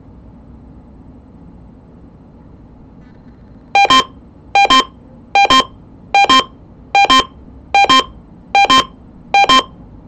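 Uniden BC370CRS scanner radio's alert alarm sounding loud double beeps, a little over one a second, starting about four seconds in after faint hiss. The beeping signals that an Emergency Alert System alert, here a required monthly test, has been received.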